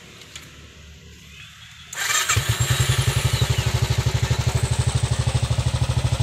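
Royal Enfield Classic 500 fuel-injected single-cylinder engine spun by its electric self-starter about two seconds in, catching almost at once and then running at a steady idle with an even, rapid beat. The start comes right after the self-starter wiring has been reconnected to cure the bike's starting problem.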